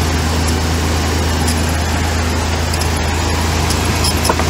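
Ford Ranger's 3.0-litre V6 idling steadily, with a light squeak from the belt drive that the owner puts down to the alternator or the belt tensioner.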